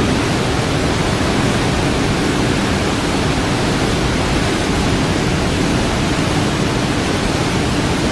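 Steady loud rush of churning white water in the wake of the aircraft carrier USS Ronald Reagan running at high speed.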